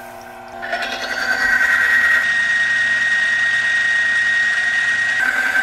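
A friction-testing machine's electric motor runs a wear test, spinning a metal wheel against a metal cylinder lubricated with WD-40. It gives a steady grinding noise with a high whine that comes in about half a second in and drops slightly in pitch near the end. The WD-40 protects poorly: the contact smokes and leaves a large wear scar.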